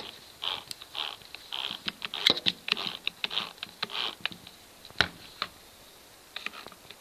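Repeated short scraping, rubbing sounds with a few sharp clicks, as a hand twists the keyless chuck of a cheap cordless hammer drill. The chuck is faulty and will not open or lock.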